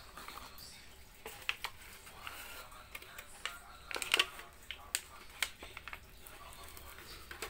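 Hands handling earbud packaging, a cardboard box and a white insert tray, giving light rustling and a scatter of sharp clicks and taps. The loudest click cluster comes about four seconds in.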